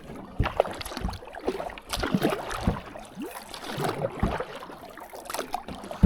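Kayak paddle strokes in open water: irregular splashing and dripping as the blades dip and lift.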